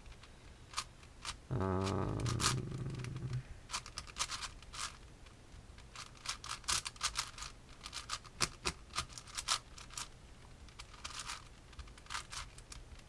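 Plastic Rubik's cube layers being turned by hand, an irregular run of quick clicks and scrapes. There is a brief low hum-like sound about two seconds in.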